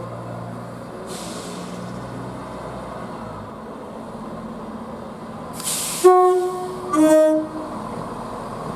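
Train horn sounding two short, loud blasts of a multi-tone chord, the second slightly lower in pitch, after a brief burst of air hiss. The train rumbles steadily underneath.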